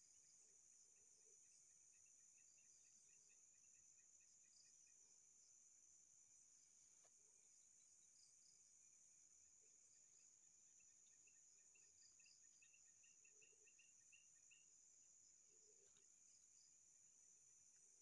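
Near silence, with only faint night insects chirring: a steady high hum and scattered short chirps.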